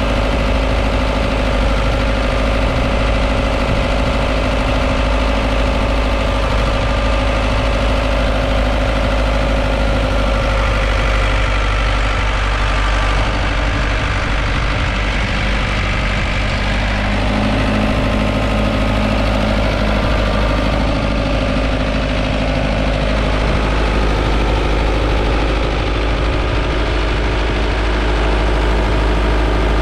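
Ford 5030 tractor's 4.2-litre four-cylinder diesel engine running steadily, its note shifting slightly a little over halfway through.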